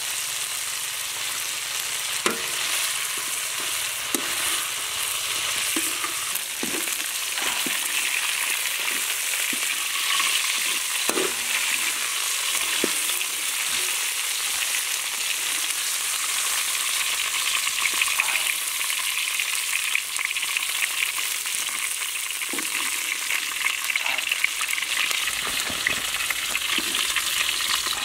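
Dung beetles and lemongrass sizzling as they stir-fry in a wide metal pan: a steady frying hiss with occasional short knocks.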